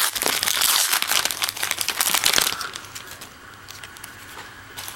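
A trading-card pack wrapper being crinkled and torn open by hand for about two and a half seconds, then quieter handling of the cards.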